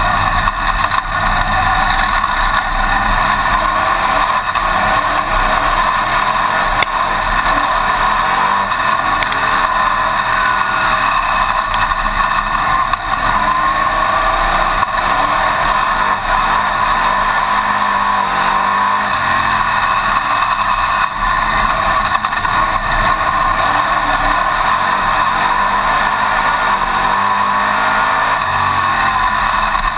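Winged dirt-track modified race car's engine running hard at racing speed, heard from a camera mounted in the cockpit. Its pitch rises and falls a little with the throttle.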